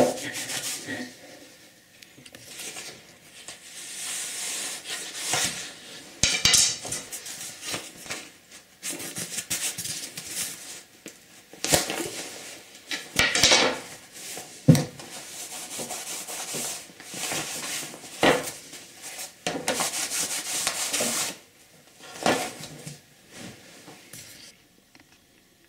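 Dry cloth rubbing over a dried, stretched muskrat pelt on a wooden stretcher board, wiping off beads of fat that came out in drying. It comes in spells of scratchy rubbing, with several sharp knocks as the wooden stretcher and slat are handled on the wooden workbench.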